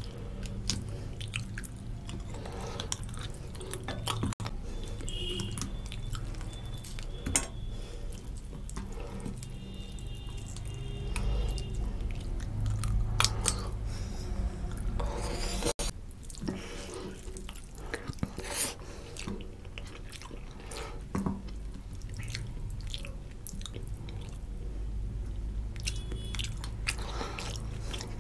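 Wet chewing of a mouthful of rice and rohu fish curry eaten by hand, with many scattered sharp mouth clicks, and fingers squishing curry-soaked rice on the plate.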